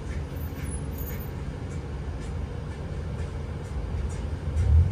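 Interior ride noise of a 2021 Nova Bus LFS Hybrid transit bus under way: a steady low rumble of drivetrain and road, with faint scattered ticks and rattles. A louder low thump comes just before the end.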